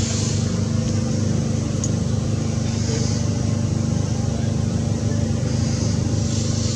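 A motor running steadily with a low, even drone. A high hiss swells near the start and again near the end.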